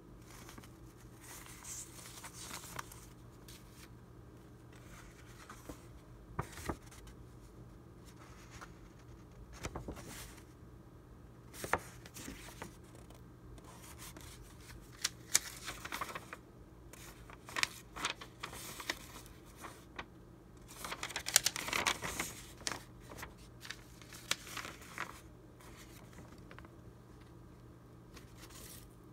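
Old paper documents and a postcard handled and leafed through by hand: crisp paper rustles and light taps come and go, with a longer, louder rustle about two-thirds of the way through.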